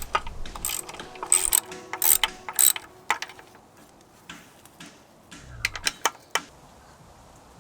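Hand tools clicking and clanking on metal in quick runs of sharp strokes, with a few scattered clicks later on, as work on the outboard motor's lower unit begins.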